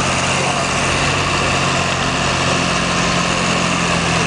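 John Deere tractor's engine running under heavy load at a steady pitch and level, pulling a weight-transfer sled in a tractor pull.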